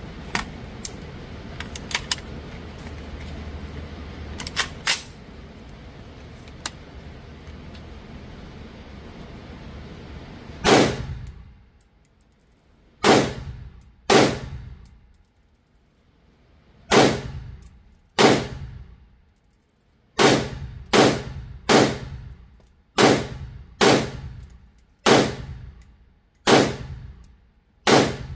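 Pistol fired in a slow string of single shots, about fifteen in all, starting roughly ten seconds in and spaced one to two seconds apart, each shot ringing briefly. Before the shots there is only steady background noise with a few small clicks.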